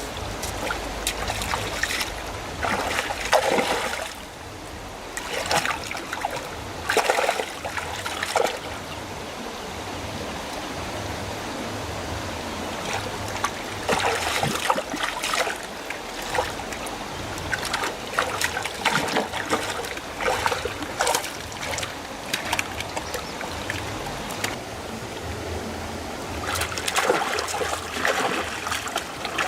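Water trickling, with bouts of irregular splashing now and then.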